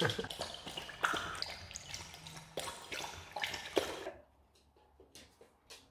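Husky lapping water from a bowl: a rapid run of splashy laps that stop about four seconds in.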